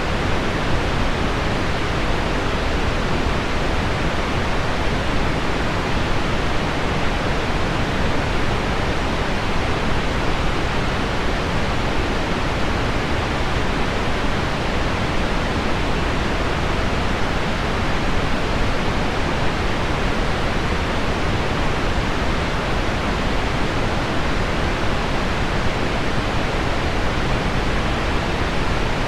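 Heavy rain on window glass blended with a low pink-noise bed, making a steady, even hiss with no separate drops standing out.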